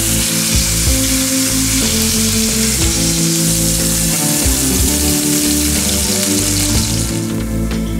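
Oxtails sizzling as they brown in hot oil in a cast iron skillet, the sizzle easing off about seven seconds in. Background music plays throughout.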